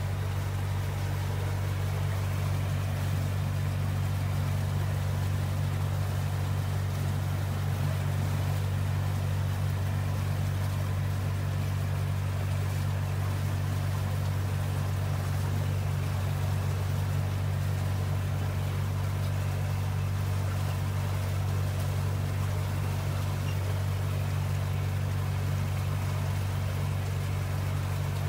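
A boat's engine running steadily under way, a constant low drone that does not change.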